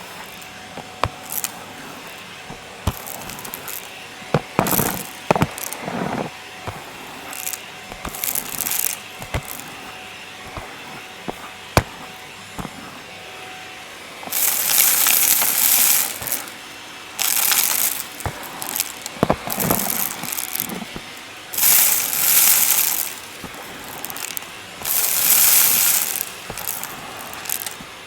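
Vacuum cleaner picking up crunchy debris: scattered clicks and rattles as bits are sucked up. From about halfway in come several loud hissing bursts, each lasting a second or two.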